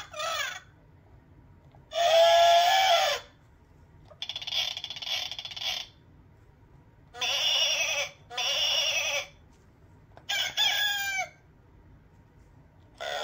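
Electronic sound-book button panel playing short recorded animal-sound clips through its small speaker, one after another: five clips of about a second each, with short gaps between, the first the loudest.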